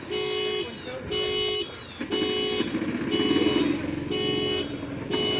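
A horn sounding in short, evenly repeated blasts, about one a second, each a single loud note with a buzzy edge. A person's voice is heard under it for a moment in the middle.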